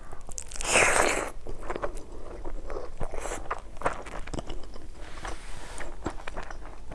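Close-miked eating: a loud mouthful of rice and fried noodles taken by hand about a second in, then chewing with many small wet mouth clicks and crunches.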